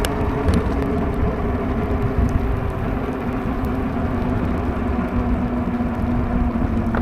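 E-bike under way on a wet road: a steady electric motor whir over a low rumble of riding noise, with a few faint ticks.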